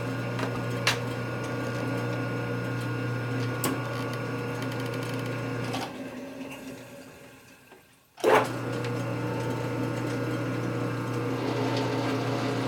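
Geared metal lathe running at low speed with a steady hum and a few clicks from its controls. About six seconds in the motor stops, and after about two seconds of near quiet it starts again with a sharp clunk.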